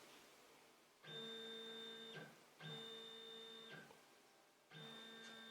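The stepper motors of a Dowell3D D2-300 3D printer whine faintly as they lower the bed in a few jogs, three runs of about a second each with short pauses between, driving it down towards its end stop.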